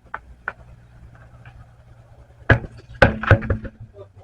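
Sharp knocks and clatter of hand tools during a wheel change: two light clicks near the start, then a loud knock about two and a half seconds in and a short burst of clattering knocks just after.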